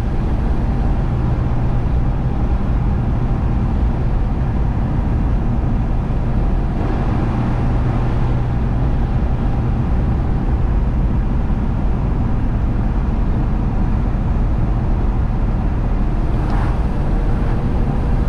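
1953 Chevrolet panel truck's inline-six engine running steadily at cruising speed, with road noise, heard from inside the cab; the ride is pretty smooth.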